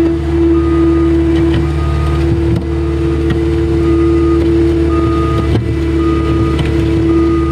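CAT 242D skid steer's diesel engine running steadily under work, with a strong steady whine. Short high beeps come and go, like the machine's backup alarm.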